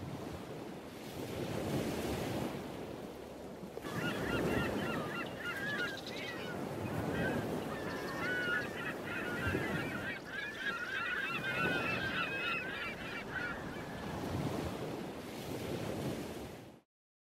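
Waves washing, with a flock of birds calling in many overlapping wavering cries from about four seconds in until near the end; the sound cuts off suddenly just before the end.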